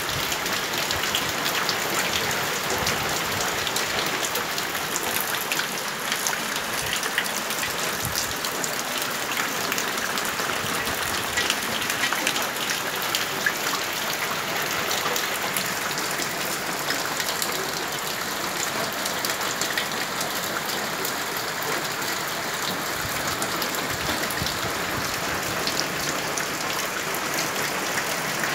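Steady rain falling on a roof and yard, with water running off the roof edge and a dense patter of separate drops ticking through it.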